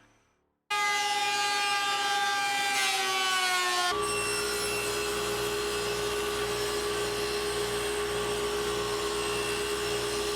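Power saw running while rabbets are cut in cherry boards. It starts abruptly with its pitch sagging slightly, then runs on as a steady whine from about four seconds in.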